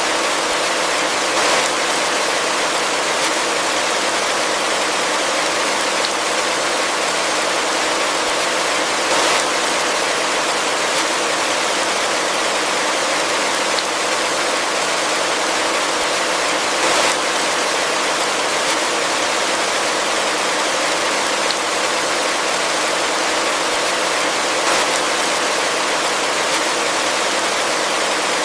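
Heavy rain falling steadily, a dense even hiss with a few slightly louder splashes now and then.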